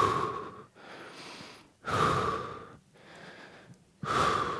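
A man breathing hard from exertion through a close headset microphone: three strong breaths about two seconds apart, one with each dumbbell reverse-fly rep, with quieter breaths between them.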